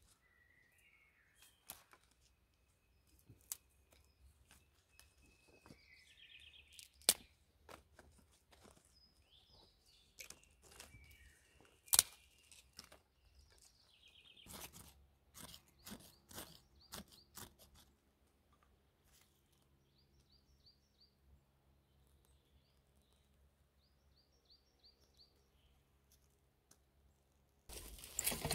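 Dry sticks being set down on a bed of wood ash in a stone fire ring: scattered knocks and clicks of wood with soft rustling, while small birds chirp now and then. Near the end a steady hiss with crackling starts, where a small kindling fire is burning.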